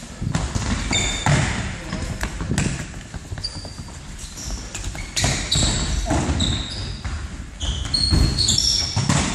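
Indoor football in a sports hall: the ball thudding as it is kicked and bounces, shoes squeaking sharply and repeatedly on the hall floor, and players' voices echoing.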